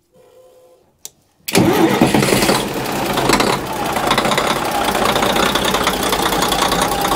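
Boat's inboard marine diesel engine starting: a faint brief sound and a click, then the engine catches about a second and a half in and runs on steadily.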